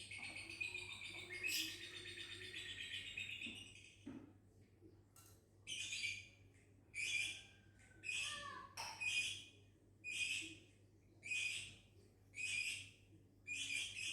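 Lovebird chattering in a fast, continuous trill for about four seconds, then giving a run of sharp, high calls about once a second.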